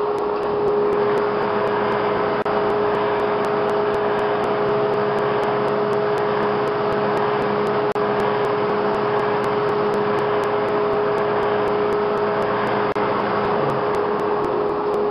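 Shop-built drum thickness sander driven by a ShopSmith, running steadily together with its dust collector, with a steady tone over a noisy hum. A board is fed through and sanded from about a second and a half in until near the end, adding a second, higher tone.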